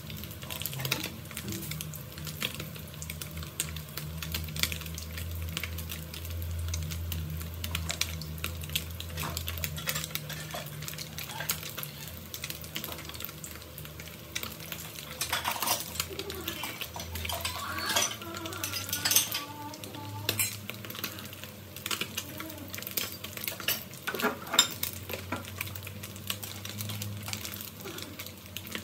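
Small whole fish frying in hot oil in a pan, the oil sizzling and crackling without a break over a steady low hum. Near the end, metal tongs click against the pan.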